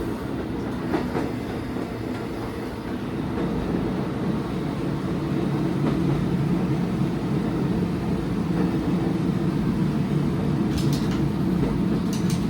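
Diesel railcar running, heard from inside the train: a steady engine drone with wheel and rail noise that grows louder about five seconds in.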